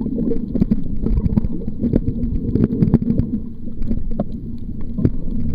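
Muffled underwater noise picked up by a camera submerged in seawater: a steady low rumble of water moving around the camera, with scattered irregular clicks and crackles throughout.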